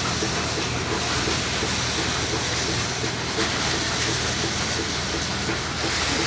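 Kapok cleaning machine running steadily: a rushing blast of air with a fast rhythmic clatter underneath as it beats the silk cotton and blows off seeds and dust.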